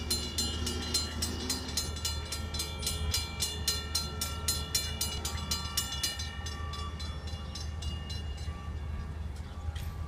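Railroad grade-crossing warning bell ringing fast, about four strikes a second, warning of an approaching train while the gates lower; it stops about six and a half seconds in. A steady low rumble runs underneath.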